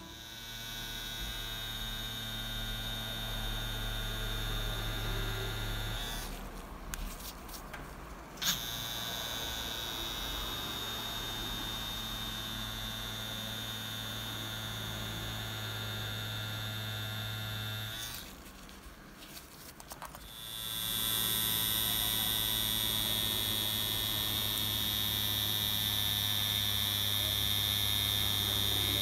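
Cartridge tattoo machine running while lining skin, a steady electric buzzing hum. It stops briefly twice, about six seconds in and again near eighteen seconds, and is loudest in the last stretch.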